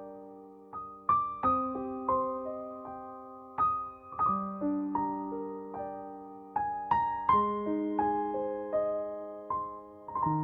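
Background piano music: soft arpeggiated notes, each struck and left to ring and fade.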